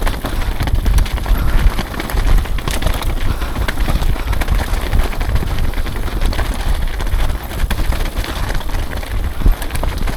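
Mountain bike descending a dirt trail: wind buffeting the microphone and tyres rumbling over the ground, with occasional sharp knocks from the bike.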